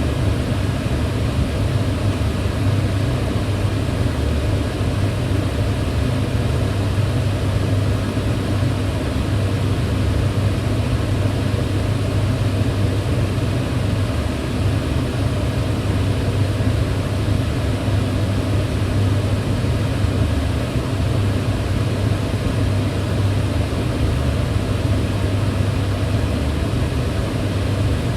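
Kitchen range hood fan running steadily: an even whooshing rush of air over a low hum, with no change throughout.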